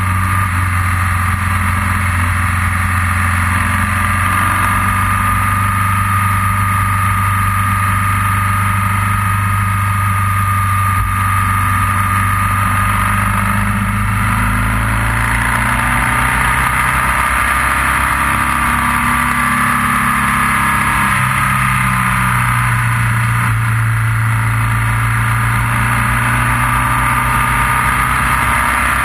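Motorcycle engine running while riding, holding a steady note with a few shifts in pitch.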